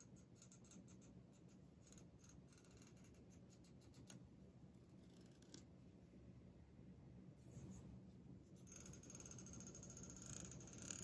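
A fingertip strumming the teeth of a black plastic tail comb, making faint runs of quick small ticks. The strumming thickens into a steady soft rasp for the last couple of seconds.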